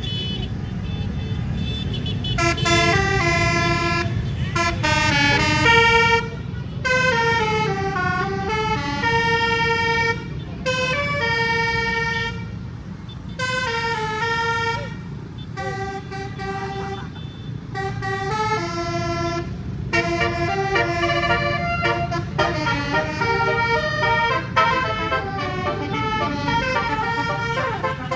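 Basuri telolet musical air horn on a tour bus, an 18-note set, playing a tune in quick runs of notes. It starts about two and a half seconds in and plays several phrases with short breaks between them, over a steady low rumble of engine and road.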